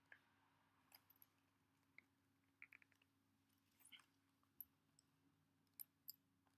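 Faint, irregular clicks and taps, about a dozen, from a plastic blister package being handled and pried at to free the padlock inside, over a low steady room hum.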